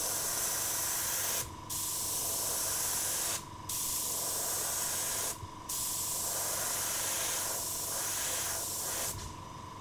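Airbrush spraying paint in stripes: a steady high air hiss, cut off by brief pauses every two seconds or so as the trigger is released between strokes, easing off near the end.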